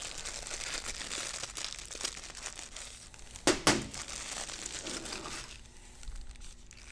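Clear plastic bag crinkling and rustling as small metal lathe parts are unwrapped by hand, with two sharp clicks about halfway through. The crinkling dies down near the end.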